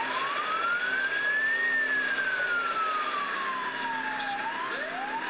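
Ambulance siren on wail. It rises in pitch for under two seconds, falls more slowly for about two and a half, then starts rising again near the end. A steady low hum runs underneath.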